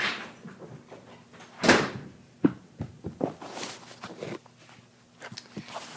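A house door being opened to let a dog out: a knock at the start, a loud rushing swish about two seconds in, then several smaller knocks and clicks.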